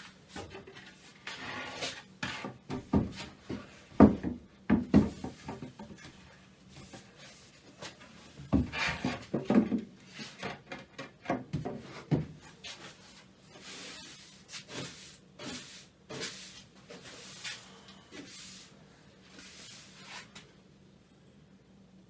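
Irregular knocks, clunks and scraping as tools and objects are handled and moved about, thinning out toward the end.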